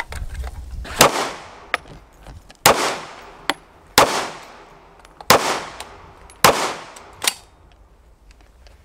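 Five loud gunshots about a second and a half apart, each followed by a ringing echo. Lighter, sharper cracks fall between some of them.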